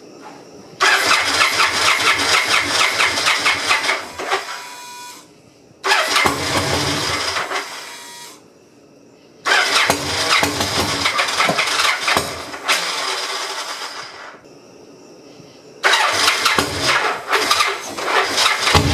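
1999 Victory V92C's fuel-injected V-twin being cranked on the electric starter in four separate bursts of a few seconds each, with short pauses between; it is being turned over after a new fuel pump was fitted and fuel primed through the lines, and does not catch.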